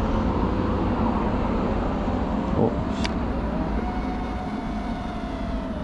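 Whine of a 5-inch FPV quadcopter's motors and Foxeer Donut toroidal propellers over a steady rush of air. Its pitch rises a little past halfway and then sinks slowly as GPS rescue takes over after the video signal is lost. A short sharp click about three seconds in.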